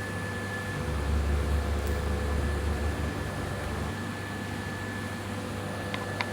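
LANG marking press running a stamping cycle over a steady machine hum: a louder low rumble for about three seconds, then two short clicks near the end.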